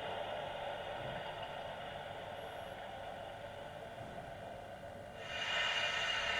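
Steam hiss from a model steam locomotive's sound decoder, played through its small loudspeaker: a steady hiss that slowly fades, then a louder, brighter hiss that starts suddenly about five seconds in.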